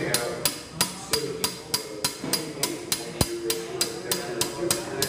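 A steel claw hammer taps steadily on the shift rails of a five-speed manual transmission, about three light metallic strikes a second.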